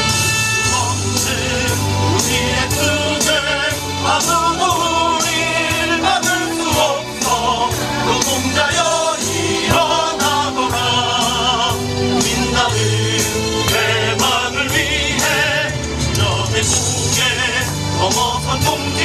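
A song with several singing voices over a band backing with a steady drum beat and bass.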